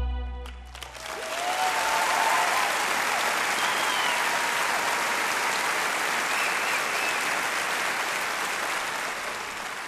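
The music's last held chord cuts off about half a second in, and a large concert audience breaks into applause that tapers off near the end.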